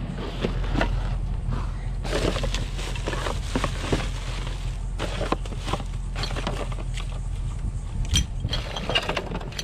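Rummaging through a wheeled trash bin: black plastic garbage bags rustling and crinkling while foam, hoses and other junk knock and clatter, in irregular bursts. A steady low hum runs underneath.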